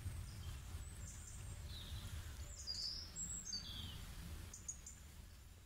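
Faint birds chirping now and then, a few short high calls clustered about three seconds in, over a low steady rumble of a calm-water nature ambience, fading out at the end.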